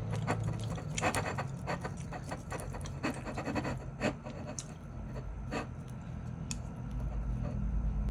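Cutlery clicking and scraping on a plate while a meal of chicken breast is cut and handled: irregular light clicks and short scrapes.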